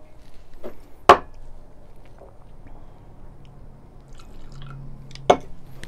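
Brewed coffee poured from a glass carafe into a small tasting glass, with two sharp clinks of glassware set down on a wooden desk, one about a second in and one near the end.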